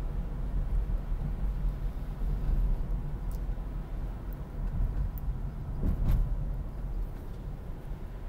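Car driving on a wet road, heard from inside the cabin: a steady low rumble of engine and tyres, with a brief knock about six seconds in.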